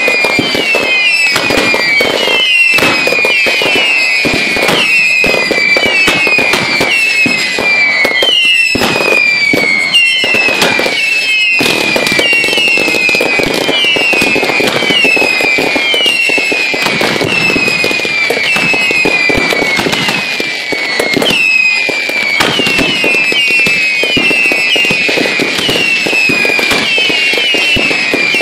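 A barrage of ground-launched fireworks firing nonstop: a stream of shrill whistles, each falling in pitch, about two a second, over dense popping and crackling.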